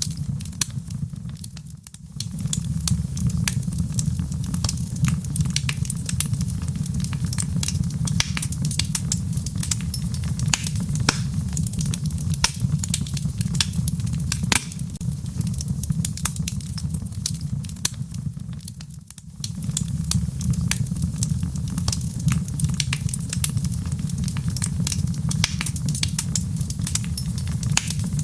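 Wood fire in a fireplace crackling with a dense run of small pops and snaps over a steady low rumble. The rumble fades out briefly twice, about two seconds in and again a little past the middle.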